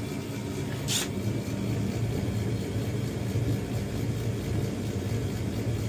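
Gas furnace running with a steady low hum, its blower motor not yet on while the heat exchanger warms up. A short hiss about a second in.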